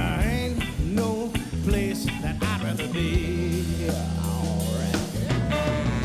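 Nine-piece funk and soul band playing live: drum kit and bass under a sliding vocal line near the start.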